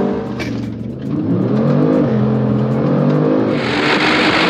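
Alfa Romeo Stelvio Quadrifoglio's 2.9 twin-turbo engine heard from inside the cabin, its pitch rising about a second and a half in and then holding steady. About three and a half seconds in it gives way to a loud rush of wind noise on an outside microphone.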